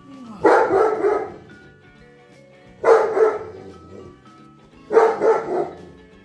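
A dog barking three times, about two seconds apart, at a deflating inflatable snowman.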